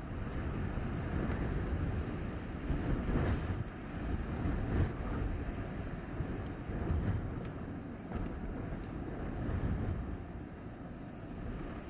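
Blizzard wind blowing hard: a deep rushing rumble that rises and falls in gusts every few seconds.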